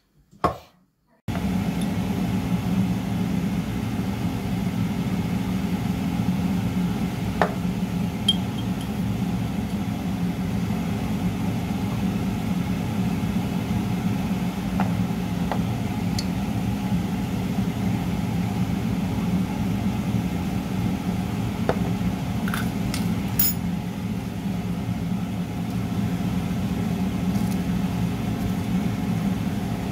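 A steady low mechanical hum, like a running kitchen appliance, that starts abruptly after a single sharp click at the very beginning. A few light clinks sound over it, mostly in the middle.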